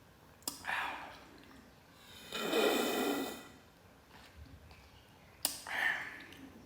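Close-up mouth sounds of a person eating: a sharp click, then a short sucking sound, a longer, louder slurp about two and a half seconds in, and another click and short sucking sound near the end.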